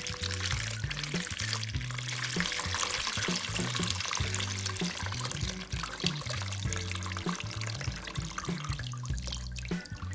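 Water being poured in a steady stream, fading out near the end, over background music with a repeating bass line.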